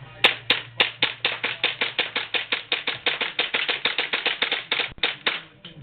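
Tokyo Marui gas blowback airsoft pistols firing a rapid string of sharp shots, about seven a second, with a brief pause about five seconds in.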